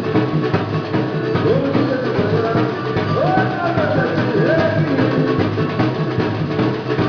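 Band music with a busy drum beat and percussion, and a gliding melody line over it.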